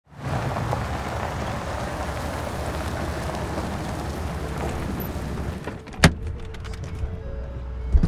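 A Ford pickup truck driving up and pulling to a stop, a steady rush of tyre and engine noise that ends about six seconds in with a single sharp knock. Soft music notes begin near the end.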